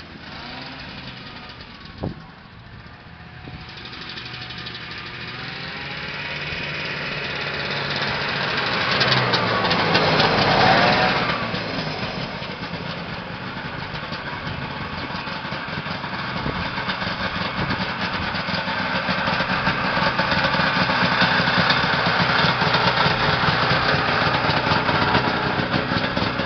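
A 1972 Harley-Davidson snowmobile's two-stroke engine running as the sled rides by. It grows louder to a peak about ten seconds in, eases off, then runs loud and close near the end. One sharp click about two seconds in.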